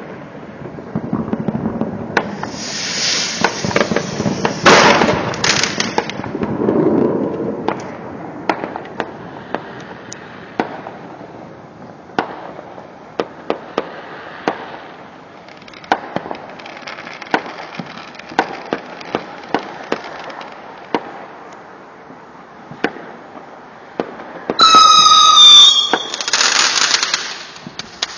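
Fireworks going off: many sharp crackling pops and bangs with hissing bursts. Near the end comes a warbling whistle about a second long, followed by a loud hissing burst.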